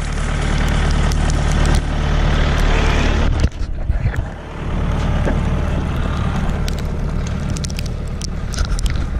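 Wind buffeting the microphone in blowing snow: a loud, steady low rumble with a hiss over it, dropping briefly about three and a half seconds in.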